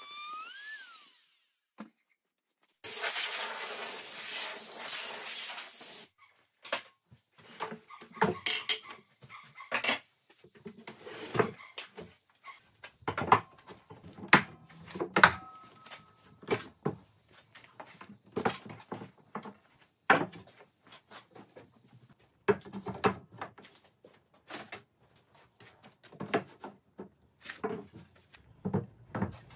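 A hand-held wood router runs along an oak board's edge with a steady noise for about three seconds, then cuts off suddenly. After that comes a long run of irregular knocks and clicks: wooden bench parts set against each other and metal toggle clamps snapped shut.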